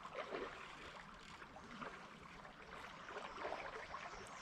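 Faint, steady flowing river water, a light gurgling trickle.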